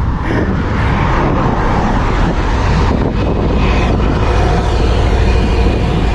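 Steady loud wind rumble buffeting the microphone of a handlebar camera on a road bicycle in motion.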